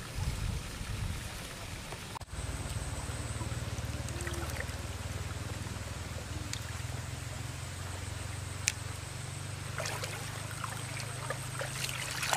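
Shallow muddy water sloshing and splashing as hands grope through it, the splashes bunched near the end, over a steady low hum.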